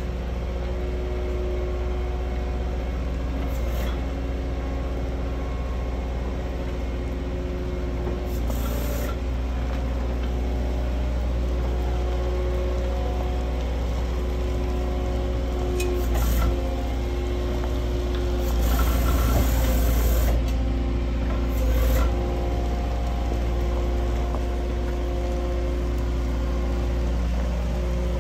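CAT 906 compact wheel loader's diesel engine running steadily while it pushes a grading blade over gravel, with the rasp of gravel scraping under the blade. A few short, louder rushes of noise come through, the longest about two-thirds of the way in.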